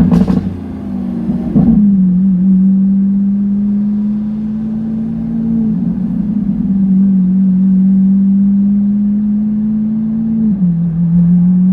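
Lamborghini Aventador S's V12 through a Power Craft exhaust: a couple of sharp crackles in the first two seconds, then a steady drone held at even revs, its pitch dipping briefly about ten and a half seconds in.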